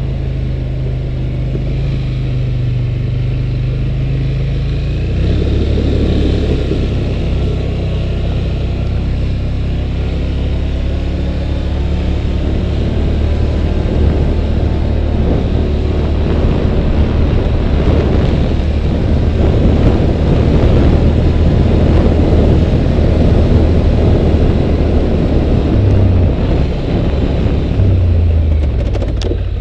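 2011 Polaris Sportsman 850 ATV's twin-cylinder engine running steadily while riding. About five seconds in, the engine note drops lower and a rougher rumble builds. The note wavers again near the end.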